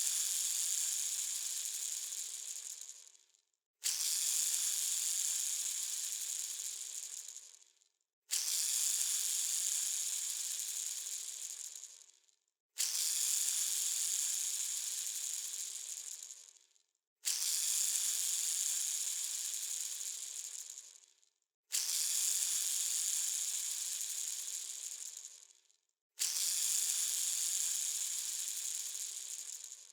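A bearing spinning with a rattly whir, set going again about every four and a half seconds. Each spin starts suddenly at full loudness and fades away over three to four seconds as it slows.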